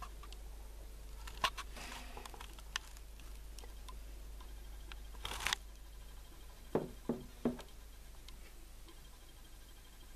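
Handling noise: scattered sharp clicks, a short rustle about five seconds in, then three dull knocks in quick succession, over a low steady hum.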